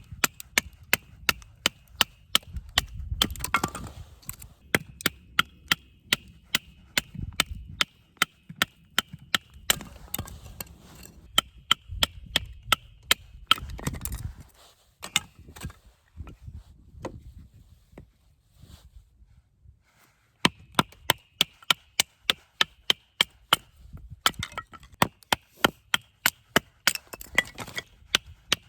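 Rapid sharp striking blows, about two or three a second, in runs broken by short pauses and a silent gap about two thirds of the way through. A faint high ringing comes and goes with the runs.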